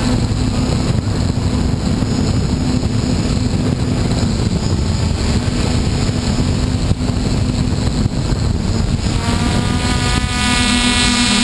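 Mini hexacopter drone's electric motors and propellers humming steadily, heard up close from the camera on board, with wind rushing over the microphone. About nine seconds in, a higher whine joins the hum.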